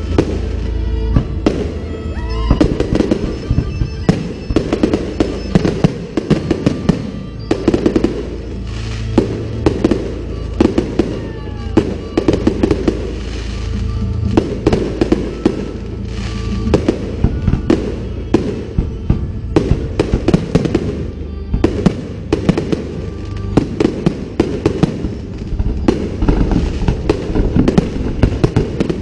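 Fireworks going off in a rapid, irregular string of sharp bangs, several a second at times, with music playing underneath.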